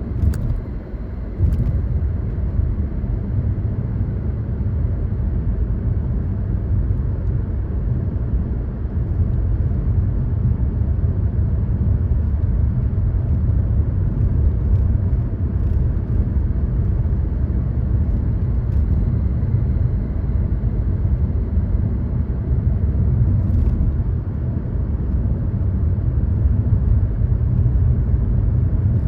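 Car on the move: a steady low rumble of engine and tyre road noise, with a brief dip about a second in and a few faint clicks.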